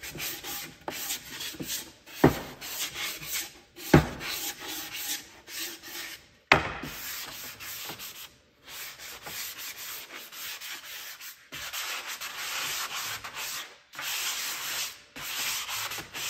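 Sanding block rubbed back and forth by hand over a painted wooden tray tier, smoothing the grain raised by water-based paint. Three sharp knocks, the loudest sounds, come about two, four and six and a half seconds in.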